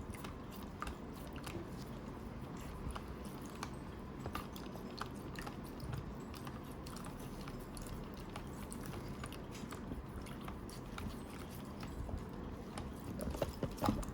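Faint, irregular small clicks and wet squishing as plastic toy pets and a sponge are handled and scrubbed in water.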